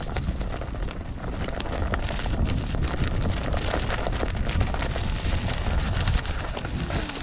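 Mountain bike rolling downhill over a rough, stony trail: tyres crackling and rattling over loose stones in a steady run of small clicks, over a low rumble of wind on the microphone.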